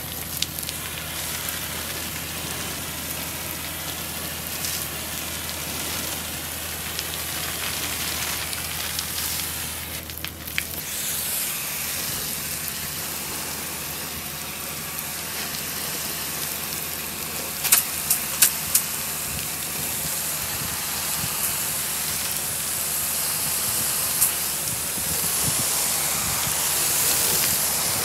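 Pressure washer spraying water onto a truck body: a steady hiss of spray. A low hum under it stops partway through, and there are a few sharp clicks just past the middle.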